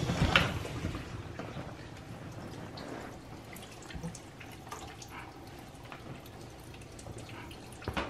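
Water dripping in the wet tub of an opened Whirlpool built-in dishwasher, as small scattered drips. A knock sounds about a third of a second in.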